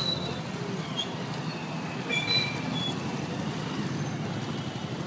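Street traffic noise heard from a moving cycle rickshaw: a steady rumble of motorbikes and cars, with a few short high-pitched tones at about a second in and again between two and three seconds in.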